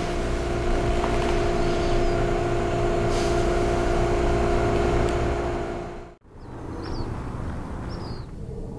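A loud, steady hum with two held tones over a low rumble, which cuts off abruptly about six seconds in. Quieter open-air ambience follows, with a few short high chirps.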